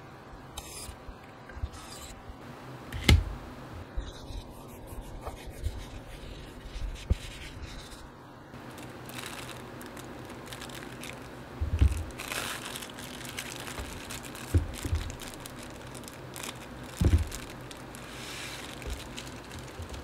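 Clear plastic wrapping crinkling as a keyboard-kit part is unwrapped by hand, with four dull knocks of parts being put down on a desk mat; the knocks are the loudest sounds.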